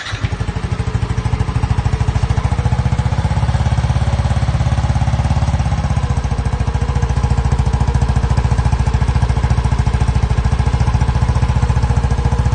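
Yamaha NMAX V1 scooter's single-cylinder engine through a JVT v2.1 "silent killer" aftermarket exhaust. It starts right at the beginning, then idles steadily with a fast, even exhaust pulse.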